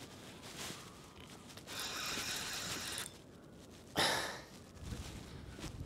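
Fixed-spool reel being wound in two short spells as an angler plays a freshly hooked pike, with a sharp exhale about four seconds in.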